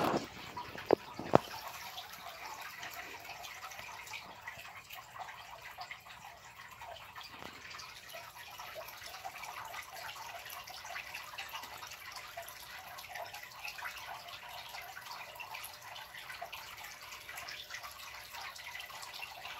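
Steady water bubbling and trickling in a brine shrimp hatching cylinder, with many small drips. A few sharp knocks in the first second and a half.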